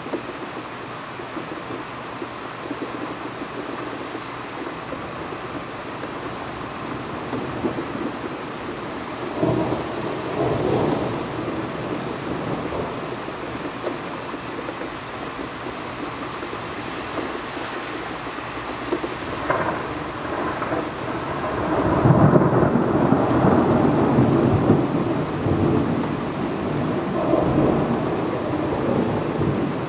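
Steady rain with thunder rumbling twice: a shorter roll about a third of the way in, and a longer, louder one a little past two-thirds that slowly dies away.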